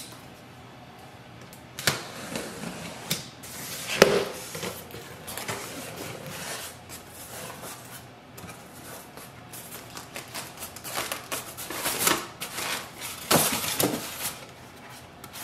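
Cardboard box being opened by hand: scattered knocks and rustling as the flaps are folded back and the packing is handled, getting louder near the end as a styrofoam insert is lifted out.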